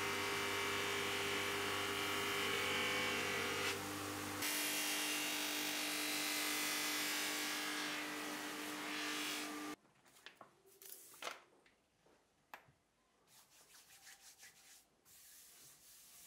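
Bench grinder fitted with white buffing wheels running, a steady motor whine under a rushing hiss as a willow cricket bat is held against the spinning wheel to buff it. About ten seconds in the sound cuts off abruptly, leaving faint scattered taps and a hand rubbing over the bat's face.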